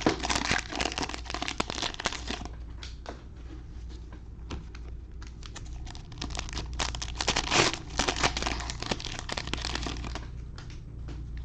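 Trading-card pack wrappers crinkling as packs are handled and opened by hand, in dense crackly runs at the start and again from about six and a half to ten seconds in.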